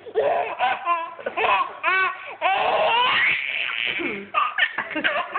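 Baby laughing in a string of short, high-pitched bursts, with a quick stuttering giggle about a second in.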